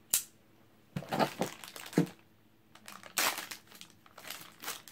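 Thin plastic bag crinkling in irregular bursts as it is handled and cut open with a folding knife, after a single sharp click at the start.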